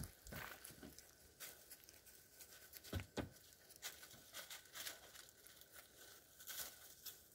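Faint, scattered rustles and scuffs of a Great Dane nosing and pawing through dry leaves and gravel beside a wooden ramp, with a few louder scuffs around three seconds in.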